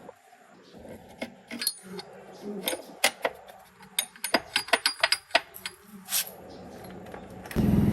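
Small metal parts and tools clinking and clicking, in quick irregular taps, as a tractor is worked on. Near the end an engine abruptly starts running loudly and steadily.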